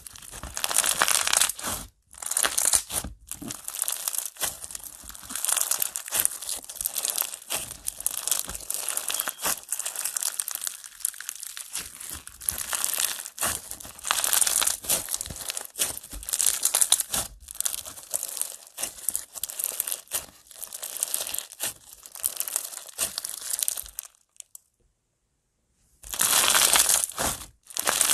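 Clear slime packed with foam beads being squeezed, stretched and pressed by hand: dense crunchy crackling and popping in irregular bursts. It breaks off for about two seconds near the end.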